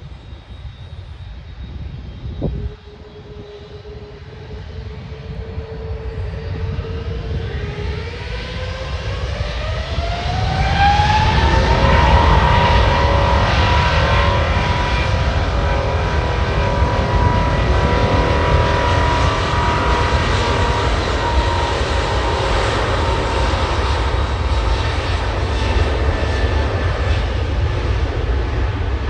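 Airbus A380's four jet engines spooling up to full takeoff power: a steady whine that climbs in pitch about eight to eleven seconds in, then a loud steady roar with the high whine held over it.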